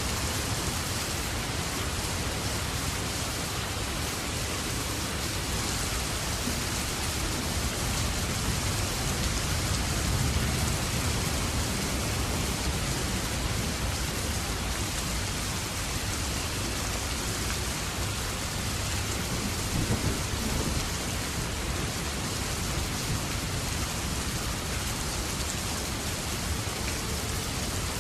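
Steady heavy rain falling in a dense, even hiss, with deeper rumbling swells about a third of the way in and again about two-thirds through.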